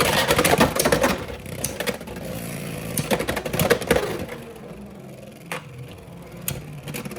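Two Beyblade X tops spinning and clashing in a plastic stadium: a dense whirring scrape just after launch, with sharp clacks as they collide. The spin settles to a quieter steady whir with occasional clicks from about the middle on.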